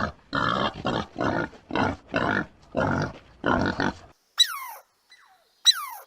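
A rapid series of about a dozen harsh animal calls, roughly three a second, stopping about four seconds in. Two sharp, falling whistle-like calls follow.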